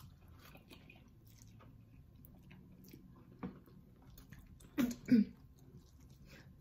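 Two people slurping and chewing forkfuls of spicy noodles, with soft wet mouth clicks. About five seconds in come two short, louder sounds in quick succession.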